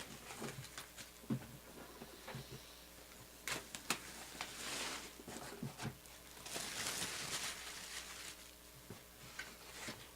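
Faint handling of trading cards and their packaging: scattered light clicks and taps, with two short stretches of soft rustling or sliding, one near the middle and one a couple of seconds later.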